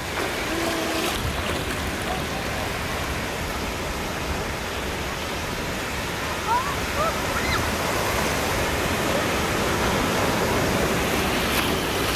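Ocean surf breaking and washing up a beach: a steady rushing hiss of waves.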